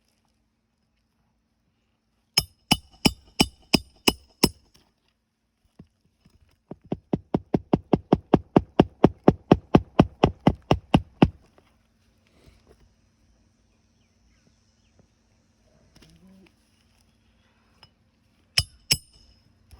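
Hammer driving roofing nails through asphalt shingles: a run of about seven ringing strikes, then a longer run of some twenty-five quicker blows, about five a second, and two more ringing strikes near the end.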